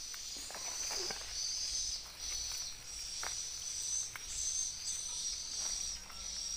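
Insects chirping in a high-pitched trill that breaks into short swells every half second or so, with a few faint ticks and rustles of hands working coconut fibre and leaves.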